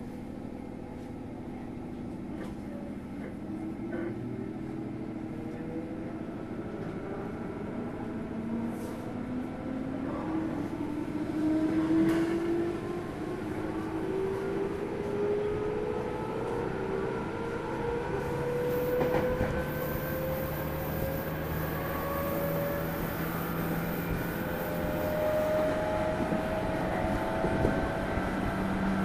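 Running sound of a JR 205 series 0 EMU heard from inside motor car MoHa 204-395. The train is accelerating: the DC traction motor and gear whine rise steadily in pitch and grow louder, with rail clicks and a sharp clack about twelve seconds in.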